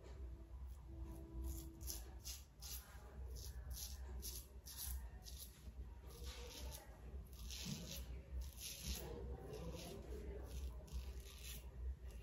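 Merkur 34C double-edge safety razor with a Wilkinson Sword blade scraping through lathered stubble on the neck in many short, repeated strokes, faint and scratchy.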